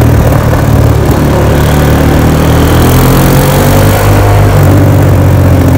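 Four-wheeler (ATV) engine running steadily while riding along a paved road, with wind noise over the microphone.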